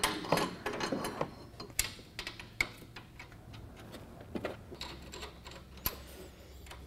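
Light, irregular metallic clicks and taps of hand tools and clamp hardware as a billet aluminum shock clamp is fitted and snugged at the top of a UTV's rear shock, busiest in the first second or so.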